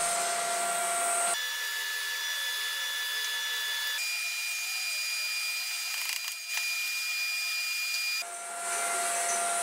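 Steady background hiss with a faint high whine that jumps in pitch a few times, and a single light click about six and a half seconds in.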